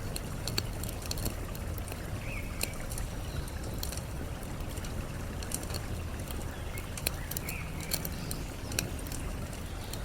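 Campfire crackling with irregular sharp pops over a steady rush of running water, with a couple of faint bird chirps.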